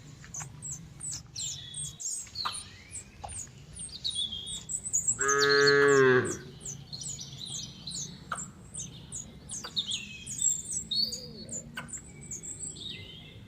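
A cow lets out one long moo about five seconds in, over birds chirping with short, high, falling notes throughout.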